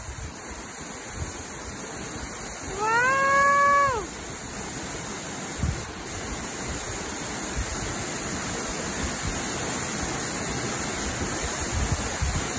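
Waterfall rushing steadily, with a cat giving one meow about three seconds in that rises, holds and falls.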